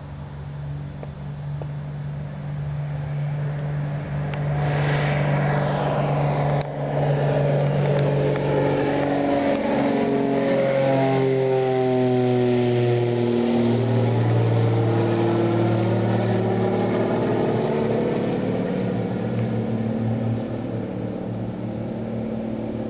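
Twin-engine propeller airplane taking off at full power. Its engine and propeller drone grows louder as it approaches and passes low overhead, with the pitch dropping as it goes by, then slowly fades as it climbs away.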